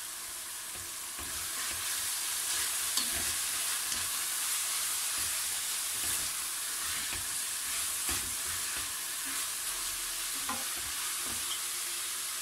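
Bacon, onion and freshly added grated carrot sizzling as they fry in a metal pot, stirred with a wooden spoon that scrapes and knocks against the pot at irregular moments. The sizzle grows louder about a second in.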